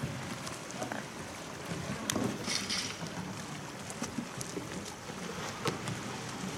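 Canoe polo kayaks in close play: paddle blades splashing in the water, with a few sharp knocks of paddles striking hulls or each other over a steady hiss of wind and water.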